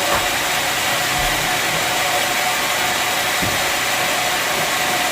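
Bandsaw sawmill machinery running with a steady whirring hum.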